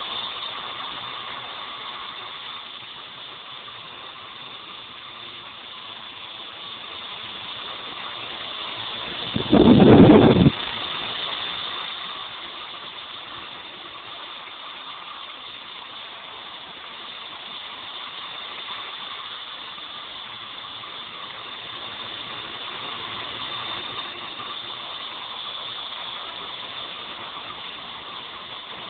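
Walkera V200D02 flybarless RC helicopter running: a steady high whine from its electric motor and spinning rotors. About a third of the way through, a loud low rumble breaks over it for about a second.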